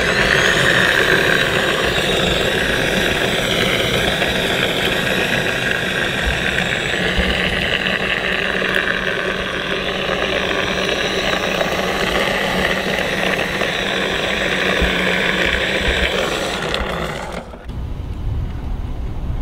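Hart 40V electric lawn mower ridden as a kart: its battery-powered drive motor and gears whining, with a wavering pitch, over the rattle of the plastic body and the wheels rolling on asphalt. About 17.5 seconds in, the sound drops abruptly to a duller, quieter rumble.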